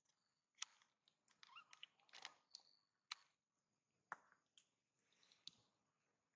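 Faint scattered clicks and soft rustling, with four or five sharper clicks spread through.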